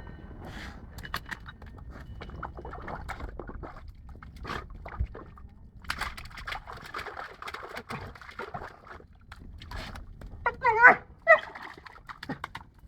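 A dog blowing bubbles and splashing with its muzzle in a water tank, the water bubbling and sloshing in rushes, the longest a few seconds long about halfway through. Near the end come two short pitched cries from the dog, the loudest sounds here.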